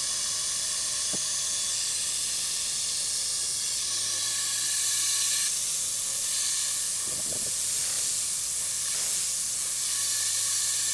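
Compressed air hissing steadily from a nozzle aimed at the cut while the lathe bores a steel bar, with a few faint steady tones beneath the hiss.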